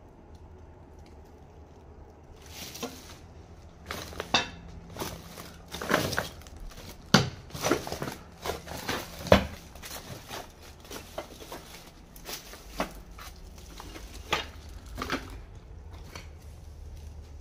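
Footsteps crunching over a dirt and rubble floor, an uneven series of scuffs and crunches that is loudest about halfway through, over a faint low hum.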